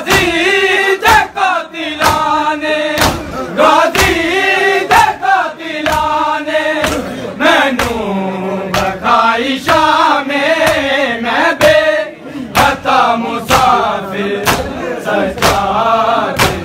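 Men's voices chanting a Punjabi noha, cut through by the crowd's rhythmic chest-beating (matam): sharp slaps in unison, about two a second.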